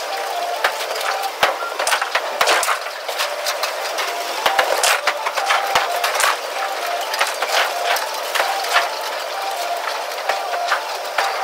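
Bowling alley clatter played fast: a dense run of sharp clicks and knocks from pins falling and pinsetter machinery, with short chirping tones scattered through.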